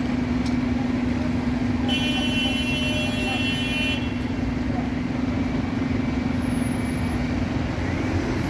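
City bus engine running with a steady low drone as it crawls past in traffic, and a vehicle horn sounding once for about two seconds, starting about two seconds in.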